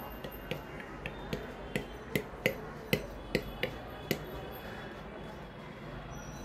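A quick, uneven series of about a dozen sharp clicks or taps, roughly three a second, stopping a little after four seconds in.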